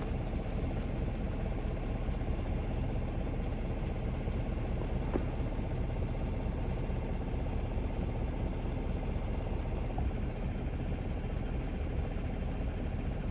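Truck engine running steadily at a low idle, with no other distinct sound over it.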